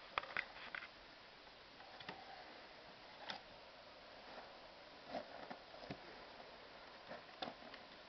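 A few faint clicks and light taps from hands handling the wooden press, over a quiet hiss; a quick cluster in the first second, then single taps every second or two.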